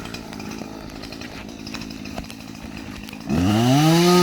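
Chainsaw idling steadily, then revved hard about three seconds in: its pitch climbs quickly and holds high and loud.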